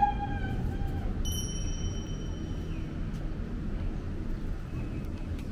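Steady low outdoor rumble of a hotel balcony overlooking the ocean. About a second in, a thin high steady tone sounds for roughly two seconds.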